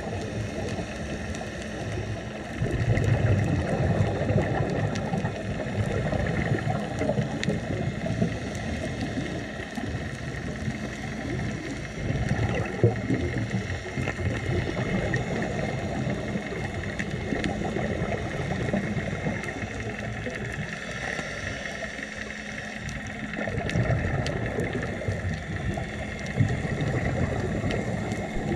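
Underwater sound on a scuba dive: bursts of regulator exhaust bubbles gurgling every several seconds over a steady mechanical hum carried through the water.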